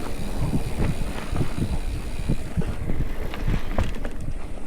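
Mountain bike rattling and knocking over rough ground, with wind rushing on the microphone.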